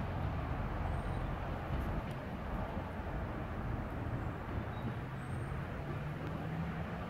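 Class 150 Sprinter diesel multiple unit pulling away into the distance, its diesel engines a low steady hum under a background hiss.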